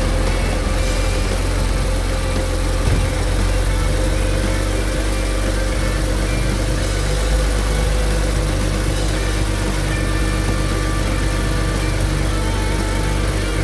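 BMW N54 twin-turbo straight-six in an E60 535i idling steadily, just after its valve cover gasket has been replaced.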